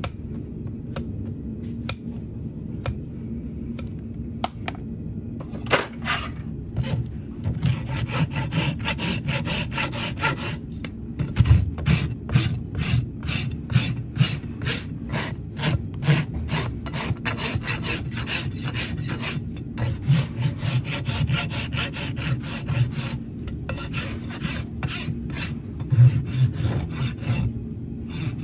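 A farrier's hoof rasp filing the bottom of a horse's hoof, in quick, rhythmic scraping strokes. The first few seconds hold only a few light clicks before the rasping starts.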